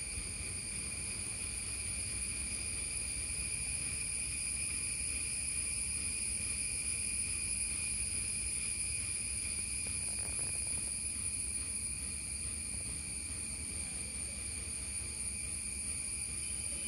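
Steady, unbroken high-pitched drone of a chorus of insects, with a low rumble underneath.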